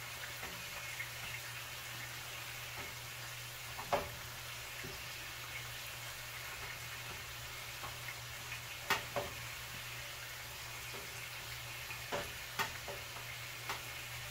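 Beef strips sizzling steadily as they brown in a pan, with a few sharp clicks and knocks of things being handled around the stove, the loudest about four seconds in and a pair about nine seconds in.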